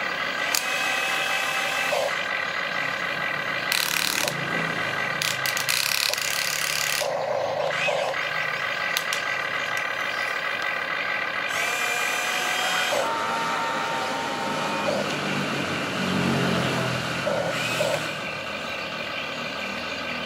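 RC excavator's electric motors whining as the arm lifts, the cab swings and the bucket dumps. The whine steps in pitch as each motion starts and stops, with several short harsh rushes of noise in between.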